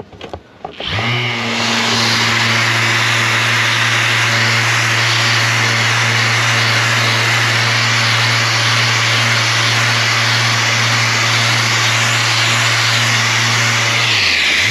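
Orbital sander with a 1000-grit softback pad flatting a car bumper's paint, keying the area around the repair for the colour blend. It starts about a second in and runs at a steady hum under a dense hiss of abrasive on paint. Near the end it winds down and is briefly started again.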